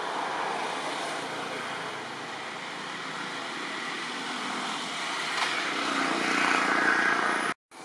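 A steady, rushing engine drone, like distant traffic or a passing aircraft, growing louder about six seconds in and then cutting off suddenly near the end.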